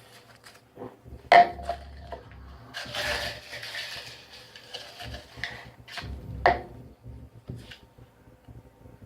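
Light knocks and clatters of a cup and small items on a table, the loudest about one and a half seconds in and again about six and a half seconds in, with a short rustle of paper about three seconds in as a slip is drawn and unfolded.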